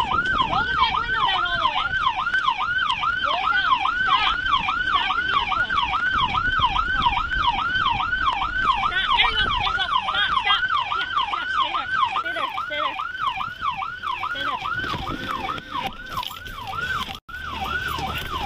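Police patrol siren sounding in a fast yelp, about three rising-and-falling sweeps a second, over steady road and wind noise. It cuts out for an instant near the end.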